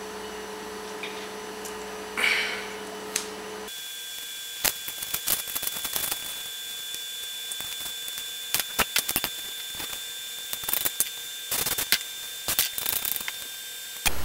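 Scattered clicks and crackles of small objects being handled as a homemade blow dart, a nail with a paper cone, is fiddled with. There is a short hiss about two seconds in.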